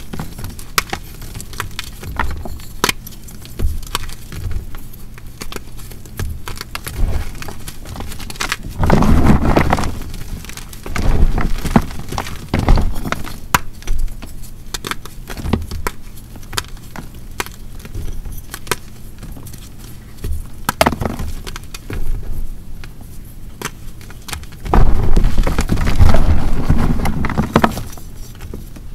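Dried hearts of BSN gym chalk, made from chalk and water, cracking and crumbling as they are crushed: a dense run of crisp snaps, with heavier crunching bursts about nine seconds in and again near the end.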